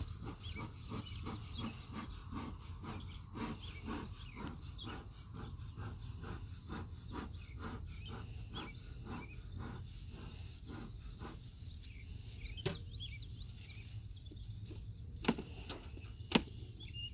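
A metal hive tool scraping burr comb off the wooden top bars of beehive frames in quick repeated strokes, about three a second, then a few sharp clicks of the tool against the wood near the end. Birds chirp faintly over a low steady rumble.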